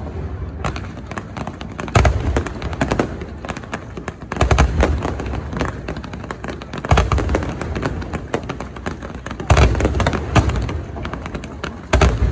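Aerial fireworks shells bursting: five deep booms about every two and a half seconds, with rapid crackling and pops from the bursts in between.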